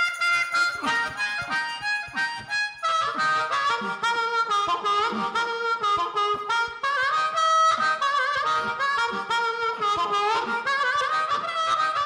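Music: a harmonica playing a solo line over a backing track.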